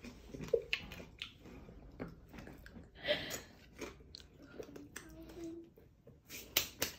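Chewing and crunching of pieces of the Paqui One Chip Challenge corn tortilla chip in the mouth, irregular crunches with a few louder ones near the end.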